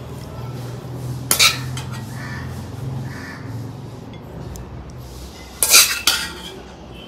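Metal cutlery clinking against dishes: two short clusters of sharp clinks, about a second and a half in and near six seconds, over a low steady hum that fades out midway.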